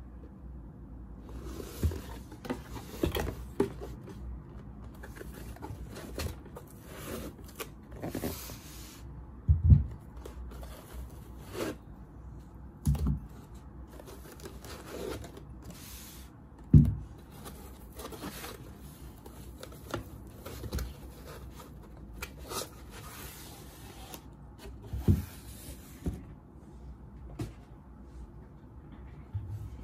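Crystal decanter pieces and tumblers being lifted out of foam packaging and set down on a table: foam scraping and rustling with many short knocks, the loudest about ten, seventeen and twenty-five seconds in.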